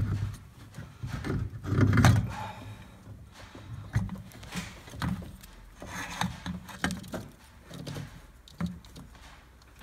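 Clunks, clicks and light metallic rattles of a brake master cylinder being moved by hand away from its vacuum brake booster, brake lines still attached. The loudest clunk comes about two seconds in, followed by scattered lighter knocks.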